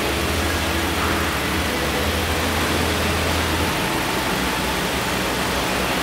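Car engine idling: a steady low rumble under a constant hiss, the rumble thinning out about two-thirds of the way through.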